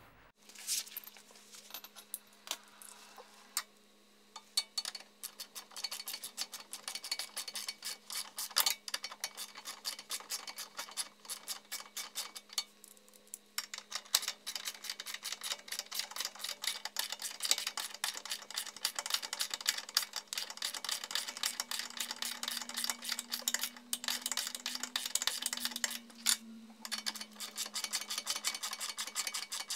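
Hand socket ratchet clicking in quick runs as a bolt is run in on a car's front subframe and control arm, with short pauses about a third of the way in and again near the end.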